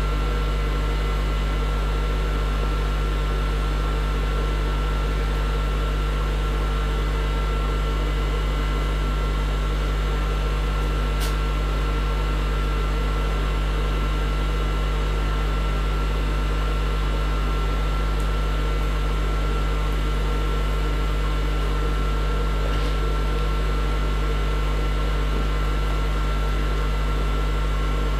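Steady low hum with a hiss over it, unchanging throughout, with one faint click about eleven seconds in.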